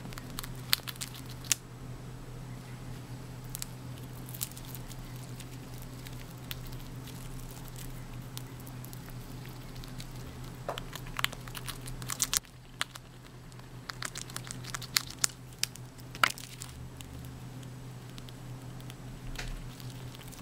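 Eurasian red squirrel gnawing a mountain pine cone: irregular sharp clicks and crackles as it bites and tears off the cone's scales, coming in scattered clusters over a steady low hum.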